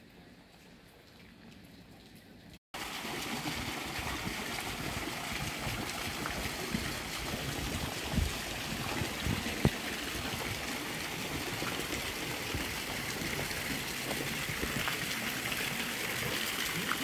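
Water from a garden fountain's jets splashing steadily into its stone basin, starting after a faint first few seconds. Two brief thumps stand out near the middle.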